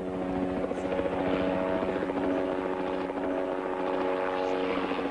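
Helicopter flying overhead: a steady engine drone with the rapid chop of the rotor blades.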